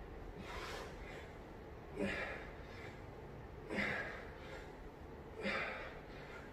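A man breathing hard while doing back extensions on a mat: a short, forceful breath about every second and three quarters, four times, the first fainter.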